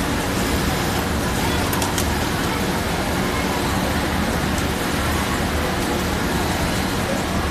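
Steady machine din of a garment factory floor, with industrial sewing machines running and a low hum. A couple of sharp clicks come about two seconds in.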